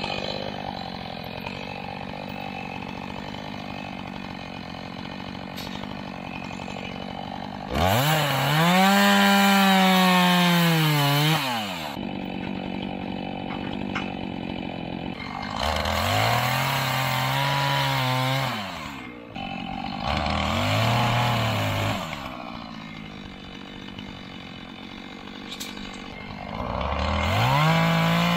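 Chainsaw idling, then revved up four times for a few seconds each and dropping back to idle between, as it cuts pine.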